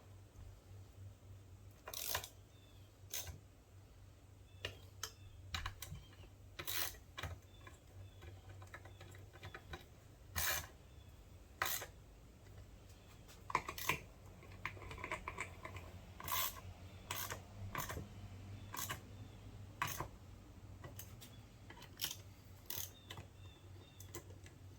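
Irregular clicks and clinks of small metal transaxle parts and hand tools being handled during reassembly, over a steady low hum.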